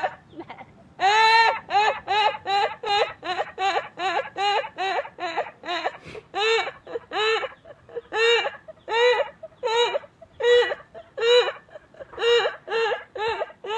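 A woman's high-pitched squealing laugh, in a long run of short, even squeals about two or three a second, with a brief break about six seconds in.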